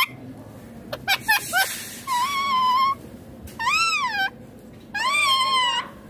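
Indian ringneck parakeet calling: a few quick short chirps about a second in, then three long drawn-out whistled calls, the middle one rising and falling in pitch.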